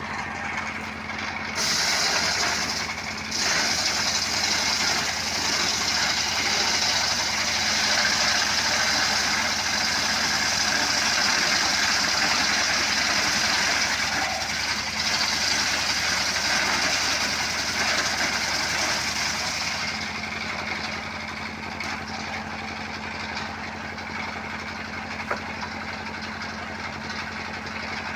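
Motorcycle engine running steadily as the power source of a homemade wood-cutting saw. A loud, high hissing saw noise starts about two seconds in and stops about twenty seconds in, after which the engine runs on alone.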